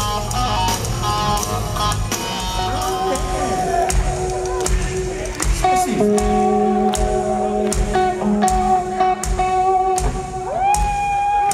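Live rock band playing an instrumental passage: electric guitar holds long sustained notes, bending into pitch, over steady drum beats about twice a second.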